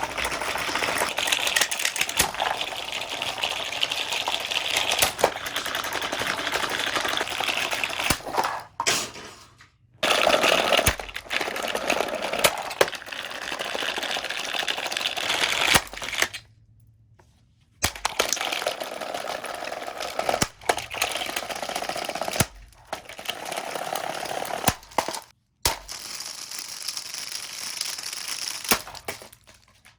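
Comfort Zone plastic table fan being broken up: continuous crunching, cracking and rattling of plastic parts with many sharp snaps, broken by a few brief pauses.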